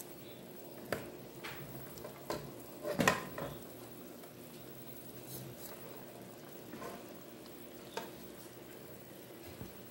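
Pieces of tucunaré (peacock bass) being laid by hand into a pot of boiling sauce: a steady bubbling with several soft knocks and wet handling sounds, the loudest about three seconds in.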